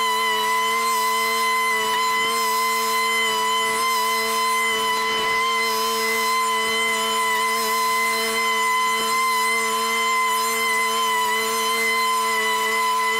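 Small gas engine of a piece of lawn equipment running at a steady high speed, giving a constant whine that holds one pitch.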